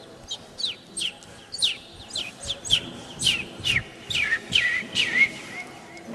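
A man imitating sparrows with his mouth: a run of short, high chirps that each slide downward in pitch, about two or three a second.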